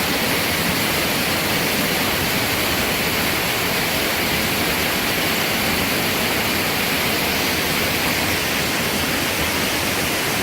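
Waterfall rushing: a steady, loud hiss of falling water.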